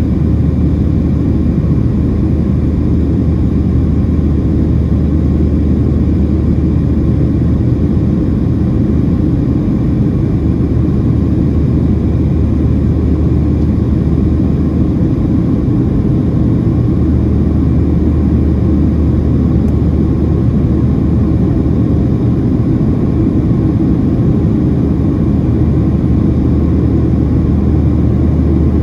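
Steady cabin drone of a Boeing 737-700 in flight: the CFM56-7B turbofan engines and the rush of air past the fuselage, heard from inside the cabin as a loud, even, low rumble with a steady deep hum beneath it.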